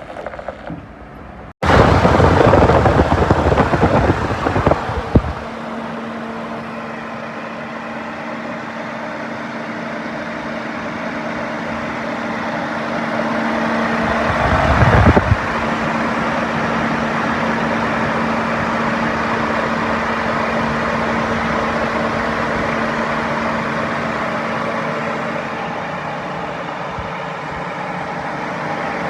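Schaeff TW 95 wheeled excavator's diesel engine running at a steady speed with a constant hum. There is a loud rough stretch after an abrupt start in the first few seconds, and a short louder burst of noise about halfway through.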